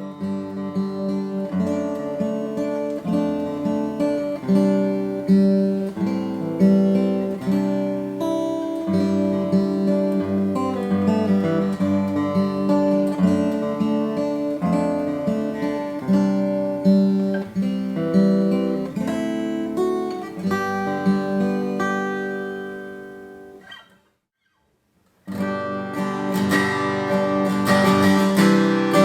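Taylor 210ce acoustic guitar being played: single notes and picked chords ring out for most of the time, then fade to a short silence. Strummed chords come in near the end.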